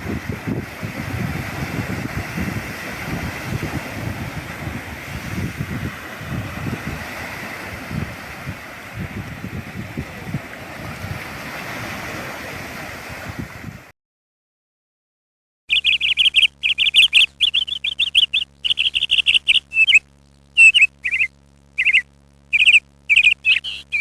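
Sea surf and wind at the shore, a steady rushing noise with a low rumble that cuts off abruptly about two-thirds of the way in. After a moment of silence comes a bird's rapid series of loud, high chirps, some in quick runs and some single.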